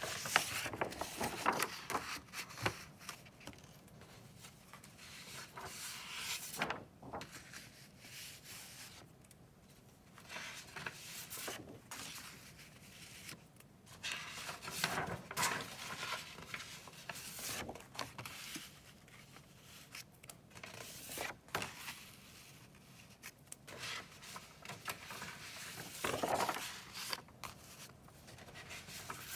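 Sheets of drawing paper rustling and sliding as they are handled and turned over in a stack, in bursts every few seconds.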